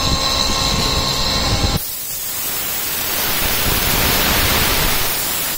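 A 3-axis vertical machining centre end-milling a brass part under flood coolant: a steady high whine of spindle and cutting for the first two seconds, then an abrupt change to a loud, even hiss of coolant spray that swells toward the end.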